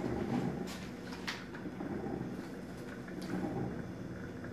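Hamilton Beach coffee maker percolating slowly, a steady low noise with a few faint light clicks.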